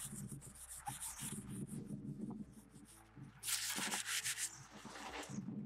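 Sanding the glaze off a painted pipe's surface in repeated rubbing strokes, getting it smooth for clamping on ultrasonic flow-meter transducers. The strokes ease off a little past the middle, then come loudest for about a second before thinning out near the end.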